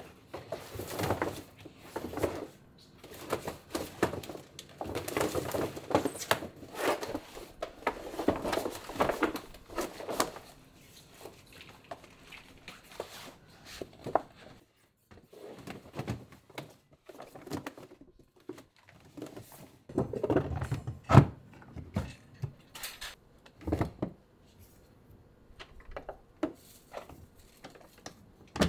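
Large plastic bags rustling and crinkling as they are handled, then a few knocks and thuds from a black plastic storage box's lid, the loudest about two-thirds of the way through, and light clicks after.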